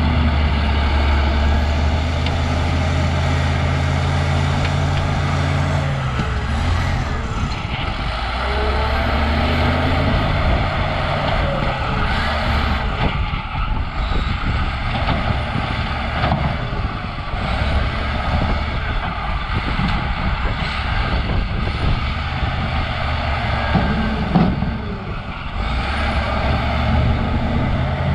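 Cat D6H crawler bulldozer working: its six-cylinder diesel engine running hard under load, the engine note dropping and picking up again every few seconds as it pushes, with a steady clatter of tracks and steel over it.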